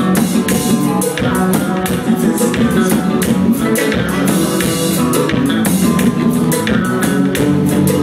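Live band playing a song with a steady beat, led by electric bass guitar and drum kit.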